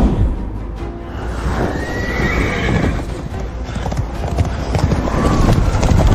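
Horses galloping, dense hoofbeats, with two whinnying neighs, one about a second and a half in and another near the end, over dramatic background music.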